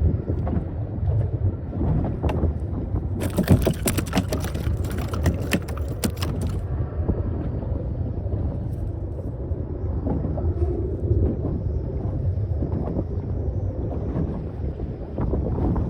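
Steady low rumble of wind and water around a small boat, with wind buffeting the microphone. About three seconds in, a run of sharp crackling clicks lasts some three seconds.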